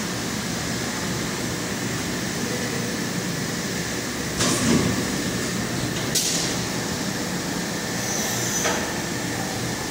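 Plastic injection moulding machine running, a steady mechanical hum and hiss, with two short hisses about four and a half and six seconds in and a fainter one near the end.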